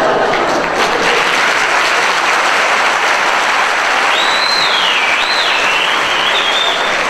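Theatre audience applauding steadily, with a high whistle that slides down and back up from about four seconds in.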